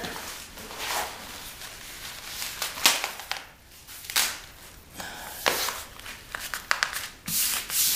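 Plastic film of a foam flooring underlay rustling and crinkling as it is laid down and smoothed flat by hand, in irregular swishes with a few sharp crackles.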